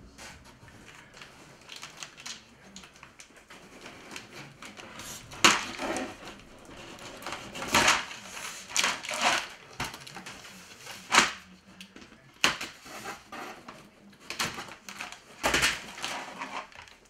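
Cardboard kit box and plastic parts tray being handled: irregular rustling and scraping with sharp knocks and clatters as the packaging is moved about and the tray lifted out.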